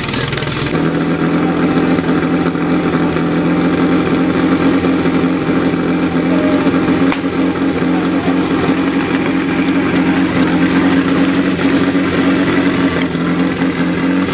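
Portable fire pump's petrol engine running steadily at one even speed, a constant pitched hum. One sharp crack sounds about halfway through.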